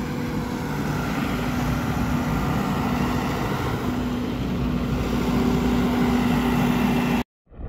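Diesel engine of a double-drum asphalt road roller running steadily, with a car driving past close by; the sound cuts off suddenly near the end.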